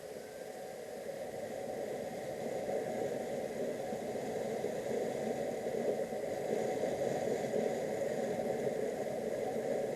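Motorcycle on the move: steady engine and wind noise, growing louder over the first few seconds as it picks up speed, then holding.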